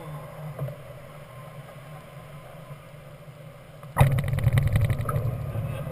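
Steady airflow hum in a Grob 103 glider's cockpit. About two-thirds of the way through, a sudden loud rumble and rattle sets in as the glider's wheel meets and rolls along the paved runway on landing, shaking the airframe.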